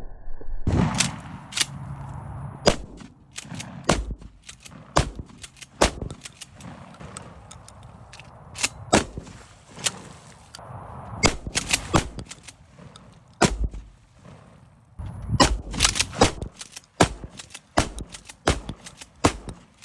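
A long, irregular string of sharp gunshot bangs, some coming in quick clusters a fraction of a second apart, with a dense run near the end.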